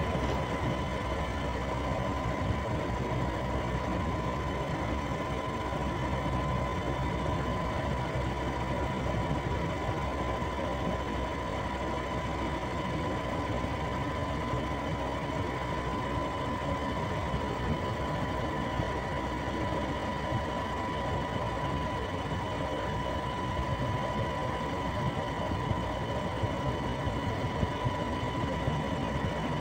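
A two-wheeler running steadily while being ridden: a constant engine and road rumble with wind noise and a steady high whine.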